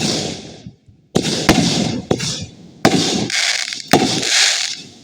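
Consumer fireworks going off in quick succession: about six sharp bangs, each followed by a short hissing spray.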